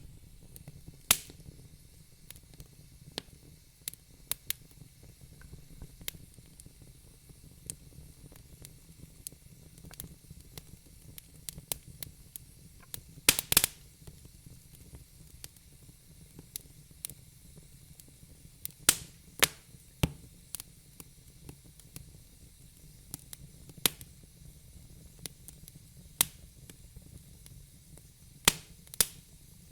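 Wood fire burning in a fireplace: irregular sharp crackles and pops over a low steady rumble, with a quick cluster of louder pops about halfway through.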